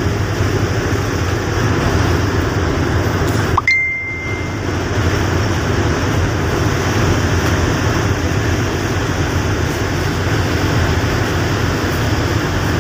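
Steady rushing outdoor noise with a low rumble underneath, broken about four seconds in by a brief dip and a short, high, single-pitched ding.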